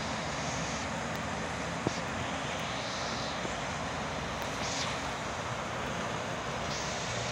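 Steady heavy rain falling, an even hiss with one sharp tick about two seconds in.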